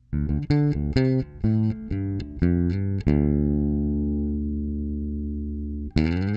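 Intro music played on guitar: a quick run of about a dozen plucked notes, then a chord left to ring and slowly fade, and near the end a new chord that slides up in pitch.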